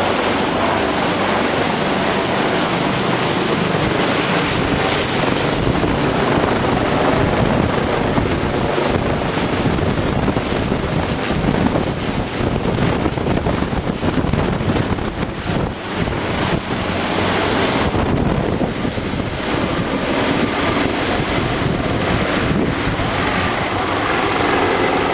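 NJSP NorthStar AgustaWestland AW139 medevac helicopter lifting off and climbing away: loud rotor noise with a steady high turbine whine. About 18 seconds in, the whine drops out and the sound thins as the helicopter draws off.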